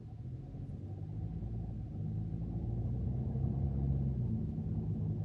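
A car's engine and road rumble heard from inside the cabin, growing louder as the car pulls away and gathers speed.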